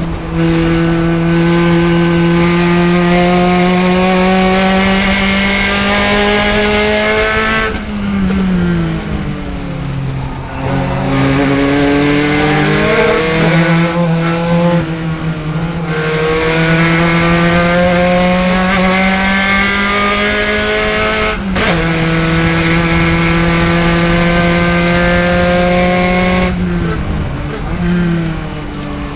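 Spec Racer Ford Gen3 race car's four-cylinder engine running at high revs on long pulls. The pitch drops and the sound thins three times as the driver lifts off: about a quarter of the way in, about halfway, and near the end. There is also a momentary cut about three-quarters of the way through.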